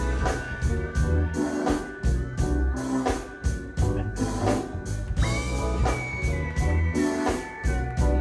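Live funk band playing: a steady drum beat over heavy bass, with organ and a held high lead note that jumps up about five seconds in and steps back down near the end.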